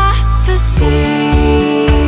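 Background music: held notes, then a steady beat with drums and bass coming in about a second in.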